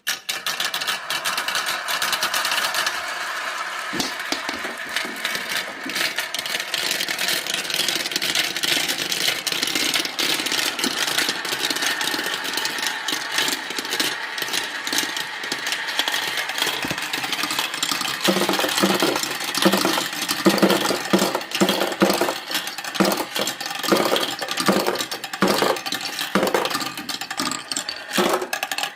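Marbles rolling and clattering down marble run tracks: a steady rolling rumble with many small clicks. From about two-thirds of the way in, the clacks of marbles knocking together and against the track come thicker and sharper.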